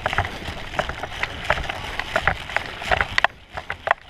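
Running footsteps on dry grass with gear jostling, short knocks about three or four a second, easing off near the end.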